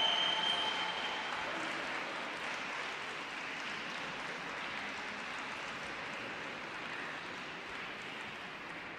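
Audience applauding, a steady patter of clapping that slowly fades.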